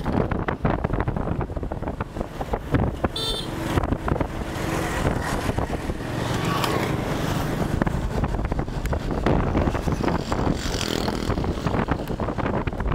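Road traffic and wind rumbling steadily on the microphone while riding along a road, with a brief horn toot about three seconds in.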